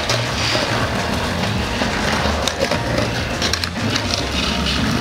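Skateboard rolling on concrete and grinding along a concrete skate curb: a steady rough grinding noise with a few sharp clacks.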